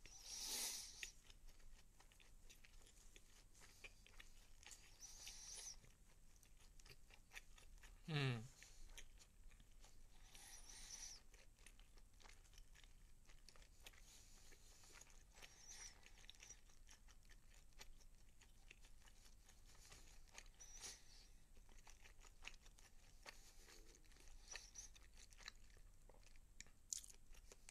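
Faint chewing and crunching of food in the mouth, with one short hummed voice sound about eight seconds in.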